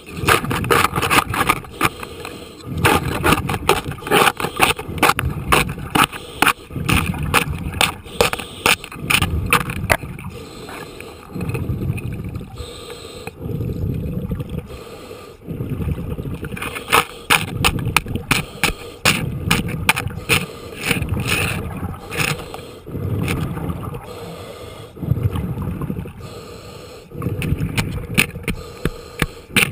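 Underwater, a diver works at compacted barnacle growth on a boat's keel. Bursts of rumbling with sharp crackling clicks come about one every two seconds.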